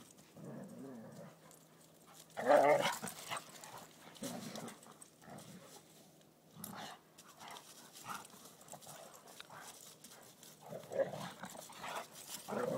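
Two Labradors play-fighting, growling in short spells, the loudest about two and a half seconds in.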